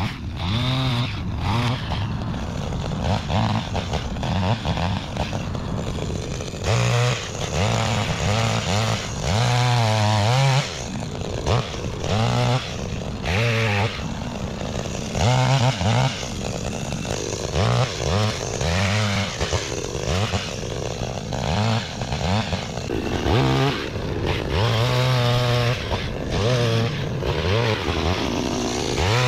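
Gas-powered string trimmer, its engine revving up and easing off again and again as it cuts grass around the base of shrubs.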